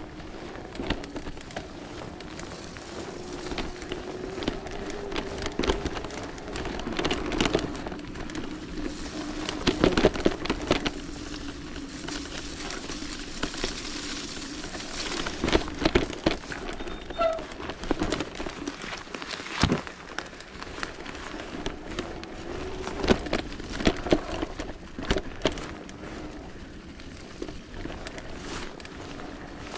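Bafang mid-drive e-bike motor whining steadily, its pitch drifting up and down, under the crackle and splatter of tyres through wet mud and frequent knocks and rattles from the bike over rough ground.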